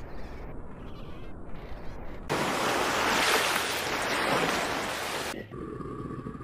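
Surf washing on a shore, mixed with wind. The steady rush grows loud about two seconds in and drops back about three seconds later.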